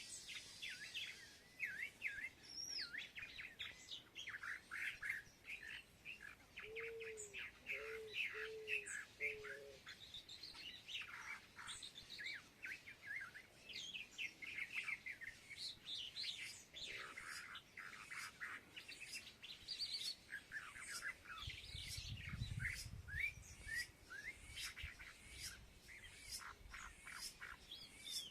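A flock of small birds chirping and twittering continuously, many short overlapping calls at once. About seven seconds in, a bird gives four short, low notes in a row. Near the end there is a brief low rumble.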